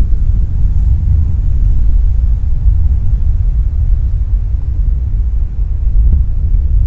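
Wind buffeting the microphone: a loud, steady low rumble with little high-end.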